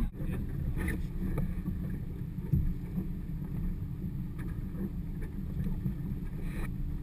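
Wind rumbling on the microphone and water slapping against the hull of a small boat, with a few light knocks.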